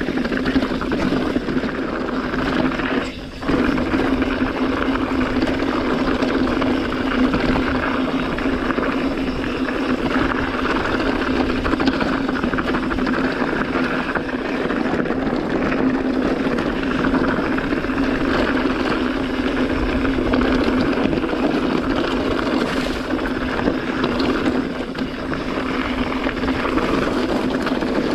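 Mountain bike riding down a loose, rocky dirt trail: tyres rolling and crunching over gravel, under a steady drone of wind rushing past the microphone, with a brief drop about three seconds in.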